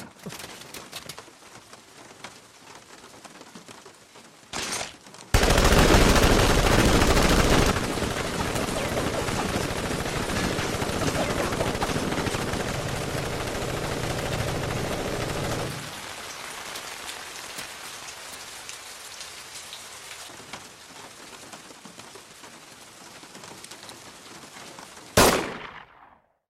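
Steady rain falling, heavy from about five seconds in and easing off past the middle. Near the end a single short, loud, sharp hit, then the sound cuts off abruptly.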